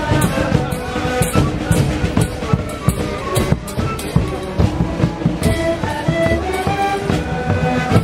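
A street band playing: Andean panpipes (sikus) sound short held notes over a large bombo drum and a snare drum beating a steady rhythm.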